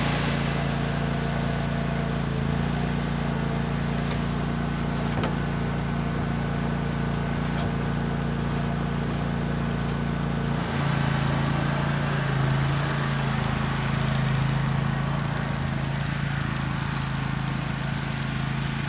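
Engine of heavy concrete-pouring equipment running steadily. Its pitch shifts and it grows a little louder about eleven seconds in.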